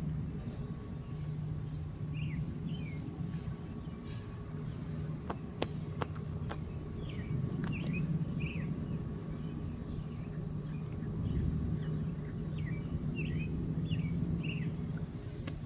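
Birds chirping in short, high, repeated calls over a steady low outdoor hum, with a few sharp clicks near the middle.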